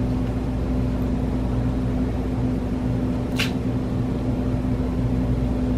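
Steady low mechanical hum of a running machine, with one short sharp click about three and a half seconds in.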